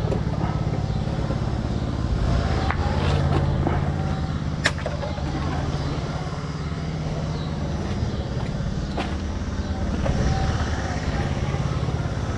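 A vehicle's engine running steadily with a low hum, with a few sharp clicks or knocks, the loudest about halfway through.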